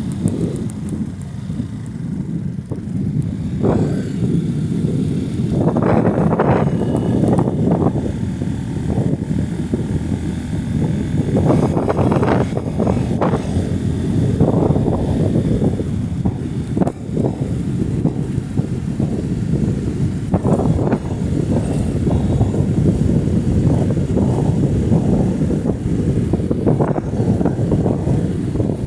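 Motorcycle engine running while it is ridden along at speed, with wind rushing over the microphone and louder swells every few seconds.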